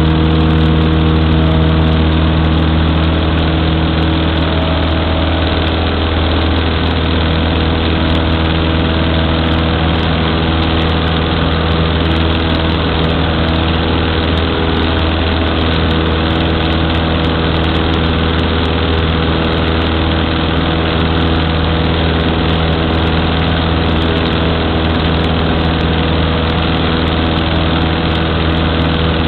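Cessna 152's four-cylinder Lycoming piston engine and propeller running with a steady drone, heard inside the small cabin.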